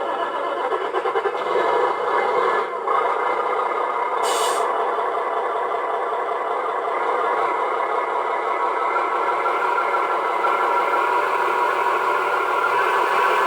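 Radio-controlled model Fuso truck running with a steady mechanical drone, with a short hiss about four seconds in.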